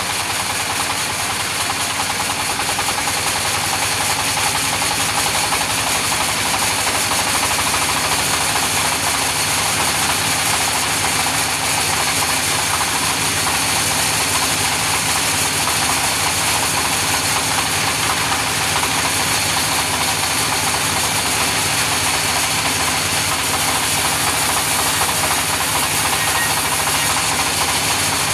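Engine-driven sawmill saw running steadily while ripping a log lengthwise, a continuous machine drone with a hiss over it; the low hum shifts slightly about seven seconds in.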